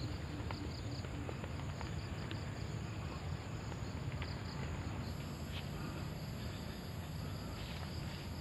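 Insects chirping in an even, rapid pulse over a steady low outdoor rumble, with a few faint clicks; a thin, higher steady whine joins about five seconds in.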